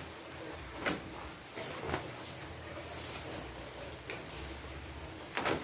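Solar panel packaging being handled during unboxing: a few short knocks and rustles, with the loudest near the end.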